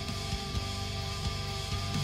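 Outro music with a steady beat and sustained chords.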